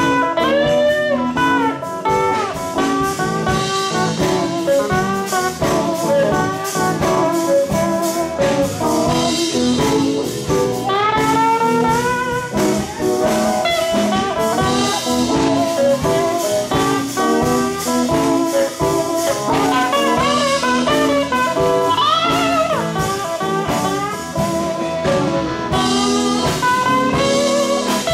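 Sacred steel gospel band playing an instrumental break: a steel guitar leads with sliding, gliding melody lines over a steady drum-kit beat and band accompaniment.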